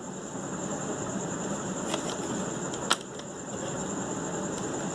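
Steady mechanical whir in the background, like a running fan, with one sharp click about three seconds in and a few faint ticks just before it.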